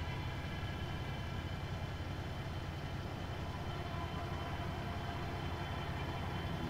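A steady, low rumbling drone with faint held tones above it, an even tense underscore with no breaks or hits.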